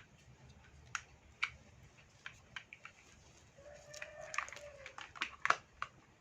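Plastic toy building blocks being handled and fitted together: scattered light clicks and clacks, coming thick and fast in the second half.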